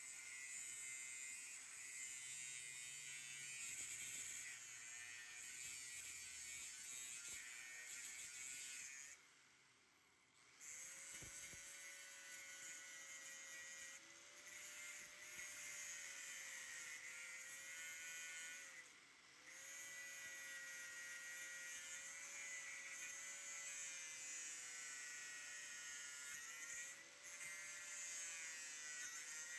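Electric angle grinder running steadily and grinding on the steel rivets of a truck frame, a high, hissing whine. It cuts out for a moment about a third of the way in, then starts again with a wavering whine, with a few brief dips as it comes off the work.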